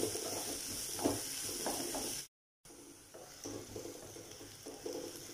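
Sliced onions sizzling in hot oil in a nonstick pot while a spatula stirs them, scraping through the pan in repeated strokes. The sound drops out completely for a moment a little over two seconds in, at an edit cut.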